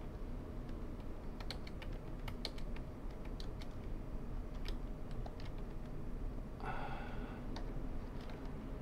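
Irregular single keypresses on a computer keyboard while BIOS boot menus are navigated, with a short tone about seven seconds in.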